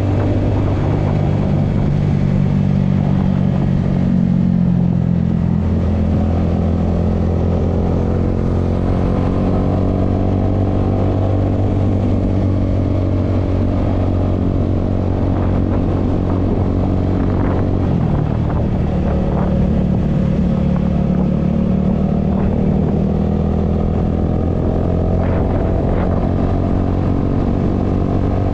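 Motor scooter's engine running steadily while riding along a road, its note changing about six seconds in and again around eighteen seconds as the throttle changes, with a few short clicks in between.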